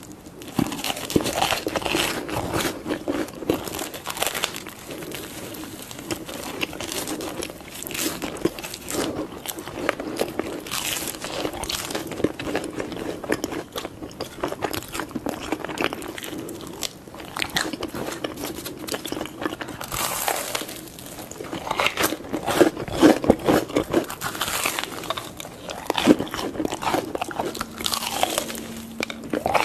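Close-miked eating: crunchy bites into fried corndogs with sugar-dusted and potato-cube coatings, with chewing between bites. The crunching grows denser and louder about two-thirds of the way through.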